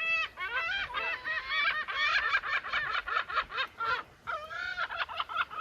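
Gulls calling: a fast run of repeated calls, several birds overlapping in the middle, with a short break about four seconds in.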